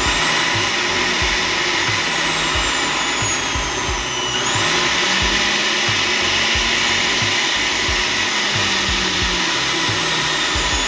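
Bella BLA13694 centrifugal juicer running empty, its motor and spinning basket giving a loud steady whine. About four seconds in the pitch sags and then climbs again as it is switched between its low and high speeds.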